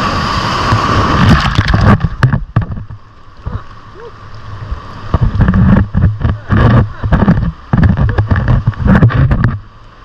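Ocean surf surging up over rocks and foaming around the camera, with spray hitting the microphone in loud rumbling, crackling gusts. The wash comes in two surges, a short one about a second in and a longer one from about halfway, which stops abruptly just before the end.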